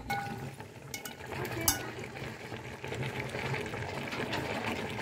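Thick cornmeal porridge (angu) bubbling as it cooks in a pot, with a few light clicks.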